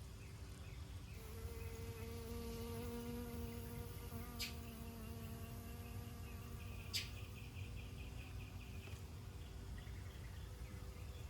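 A flying insect buzzing, a steady hum that starts about a second in and holds on, with two short high bird chirps and a brief fast trill behind it.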